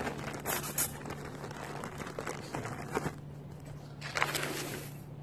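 Clear plastic zip bag crinkling and rustling as it is handled, with several short sharper crinkles, the loudest about four seconds in.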